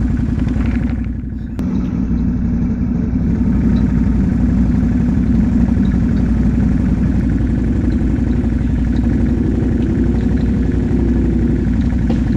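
ATV engine running steadily, easing off briefly about a second in and then picking back up, its pitch wavering near the end.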